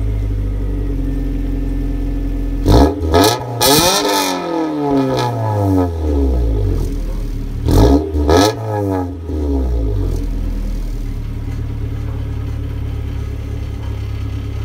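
1992 Acura Integra's four-cylinder engine, through a stock header and cat with an aftermarket eBay cat-back exhaust, idling and then blipped twice. Each rev rises sharply, then its pitch sinks slowly back to idle over a couple of seconds. After the second rev it settles to a steady idle.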